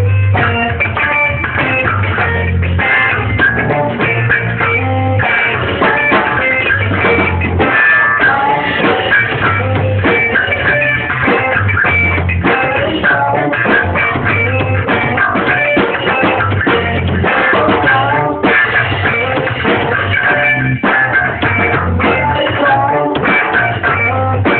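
A live band playing a song on guitar, bass guitar and drum kit, loud and steady.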